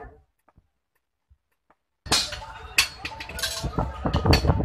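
Silent for about the first two seconds, then hammers strike red-hot iron on an anvil in irregular, sharp blows, a hand hammer and a striker's sledge, while a knife blade is hand-forged.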